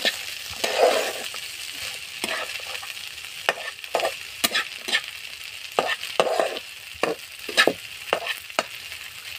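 A spatula stirring and scraping fried brown chickpeas and potato around a non-stick frying pan, knocking against the pan at irregular intervals over a steady sizzle.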